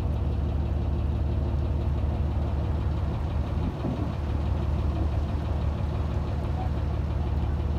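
A boat's engine running steadily with a low hum, heard from on board.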